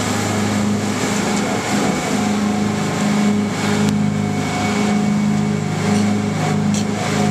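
Fishing charter boat's engines running steadily under way, a low droning hum that swells and fades slightly, over a steady rush of wind and water.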